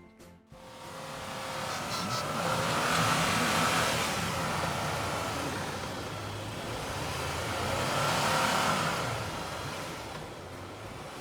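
Off-road 4x4's engine under load, revving up and easing off twice.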